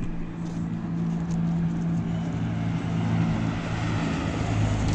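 Steady engine drone from an unseen motor, its pitch dropping a little about halfway through, with a few faint clicks.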